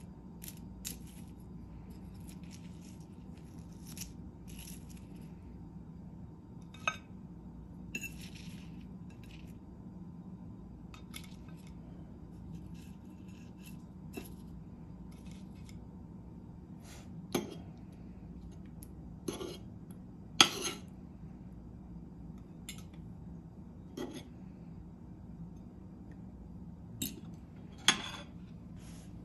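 Metal fork clinking and scraping on ceramic plates as fried squash is served, with scattered sharp clinks, the loudest about twenty seconds in, over a steady low hum.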